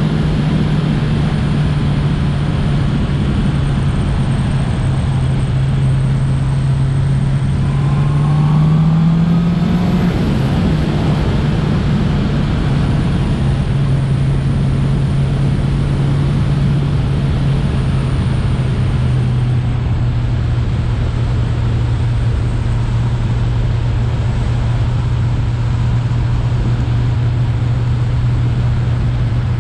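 Motorcycle engine running at a steady road speed, with wind rush over it. About eight seconds in the engine note climbs briefly, then settles back to a lower steady note.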